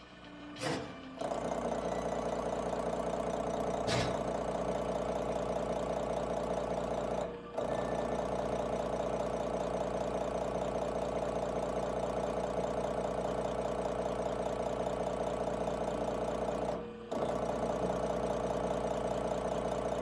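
Diesel injection-pump test bench running an inline injection pump: a steady mechanical running sound that starts about a second in. It drops out briefly twice, once about a third of the way through and once near the end.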